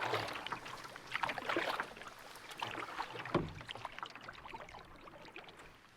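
Canoe paddle strokes dipping and splashing in calm lake water, a few irregular strokes that die down after about four seconds.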